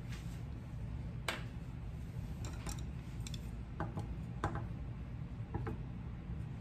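Light clicks and taps of kitchen utensils, a metal spreading knife and chopsticks, being handled and set down on a stainless-steel counter and wooden cutting board. There are about seven short, sharp clicks, the loudest a little over a second in, over a steady low hum.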